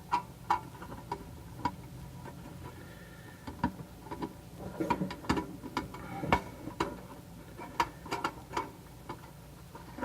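Screws being worked out of a tin can muffler's sheet-metal shell with a hand screwdriver: irregular light metallic clicks and ticks, busier in the middle.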